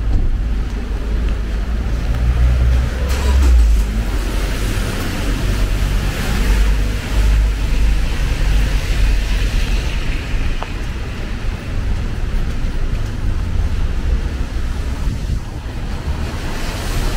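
Street ambience on a wet city street: a car tyre hiss on rain-soaked pavement swells and fades about a third of the way in, over a constant low rumble of traffic.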